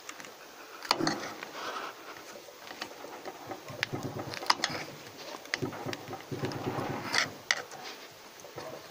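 Hand-work picking and scraping at gummy potting compound inside an electric vibrator motor's terminal box: irregular sharp clicks and scrapes of a tool against the compound and the metal housing, with the loudest clicks about a second in and near the middle.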